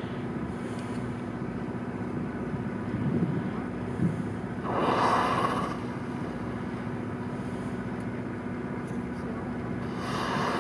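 Humpback whale blowing: a loud whooshing exhalation about five seconds in, and another near the end. Under it runs the steady low hum of an idling boat engine.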